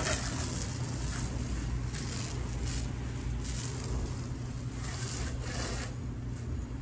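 Water spraying from a garden hose nozzle onto a pickup truck, coming and going in short spells, over a steady low rumble.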